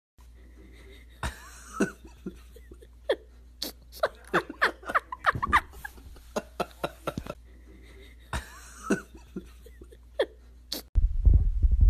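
A person making short mouth clicks and brief vocal noises, scattered throughout and coming quickly one after another in the middle. About a second before the end, a loud low hum starts suddenly.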